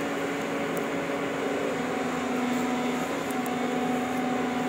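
Excavator's diesel engine running steadily under the work, a continuous hum with a held low tone whose pitch drops slightly about two seconds in.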